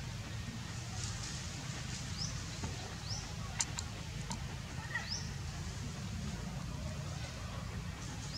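A few short, high, rising animal chirps every second or two over a steady low rumble, with two faint sharp clicks near the middle.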